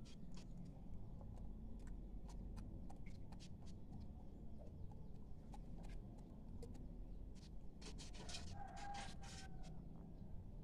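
Red junglefowl rooster pecking rice grains from a bare palm: scattered sharp little clicks, bunching into a quick run of pecks about eight seconds in, over a low steady background rumble.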